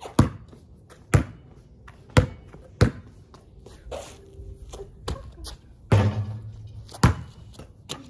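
A basketball bouncing on pavement, separate thuds at uneven intervals, four in the first three seconds and another near the end. A louder, longer impact with a brief low hum comes about six seconds in.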